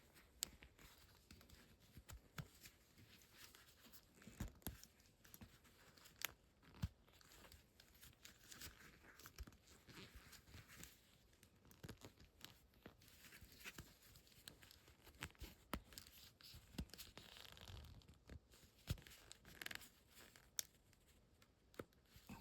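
Action-figure packaging being handled and opened: plastic crinkling and tearing, with many scattered sharp clicks and taps.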